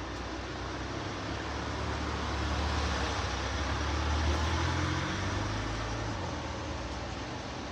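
Low rumble of a passing road vehicle, swelling to its loudest about four seconds in and then fading, over a steady hiss.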